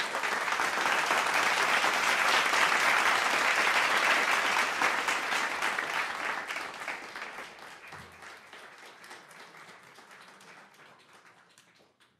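Audience applauding. The applause is full in the first half and dies away over the last several seconds.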